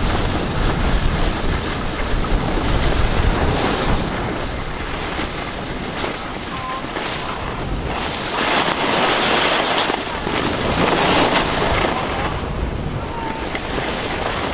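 Wind buffeting the microphone while skiing downhill, over the hiss of skis sliding and scraping on packed snow. The scraping hiss swells twice in the second half.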